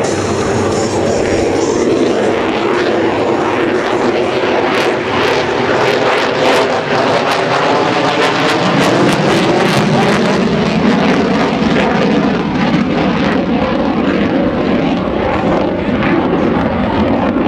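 Single-engine F-35A Lightning II jet fighter, its Pratt & Whitney F135 turbofan running at high power as it manoeuvres overhead. The jet noise is loud and continuous, with a ragged crackle strongest in the middle.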